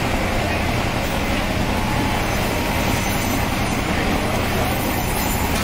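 Electric band saw (bone saw) running steadily, its blade cutting through a piece of tuna.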